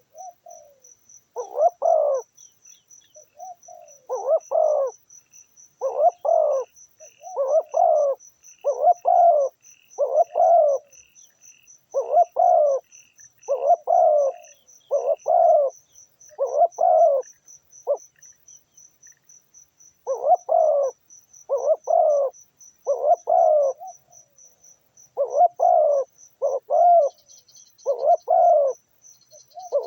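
Zebra doves cooing: one rippling phrase after another, each about a second long, repeating every second or two with a short pause about two-thirds of the way through. A steady fast high insect trill runs underneath, with a few faint small-bird chirps in the first half.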